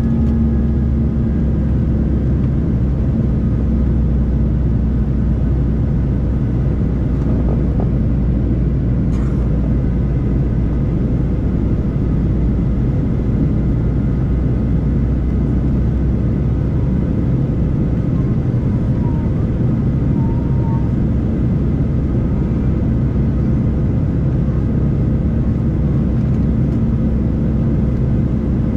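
Boeing 737-800 in flight, heard from a cabin seat over the wing: its CFM56-7B turbofans and the air rushing past make a steady low drone with a few held tones.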